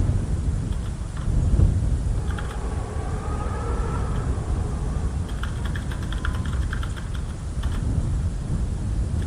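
A steady low rumble with light scattered tapping, like rain with thunder.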